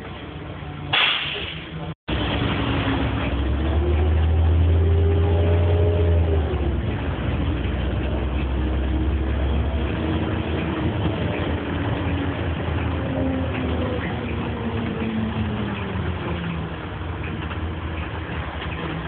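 A short loud hiss of air about a second in, then a Volvo Olympian double-decker bus's Volvo TD102KF turbo-diesel engine heard from inside the cabin, pulling the bus along: its pitch rises, drops at a gear change of the Voith Diwa automatic about six seconds in, and later falls off slowly.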